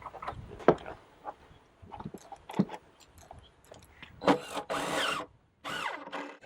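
Plywood nest-box pieces knocking and tapping as they are handled, then a louder scraping squeak about four seconds in and again near the end as the tight-fitting front panel is worked into place.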